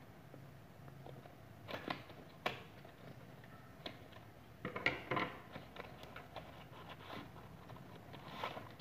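Small cardboard product box being opened by hand: scattered scrapes, taps and rustling of cardboard and paper, loudest about two seconds in and around five seconds.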